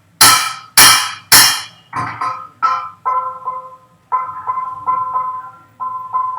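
A metal bell struck over and over, each strike ringing at the same pitch: three hard strikes in quick succession, then a run of lighter, quicker strikes.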